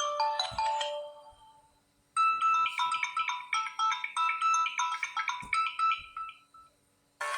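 Samsung Galaxy A03 ringtones. One ends with a falling run of notes that fades out. After a short pause a second ringtone plays a quick melody of short, bright notes for about four seconds, and a third begins just before the end.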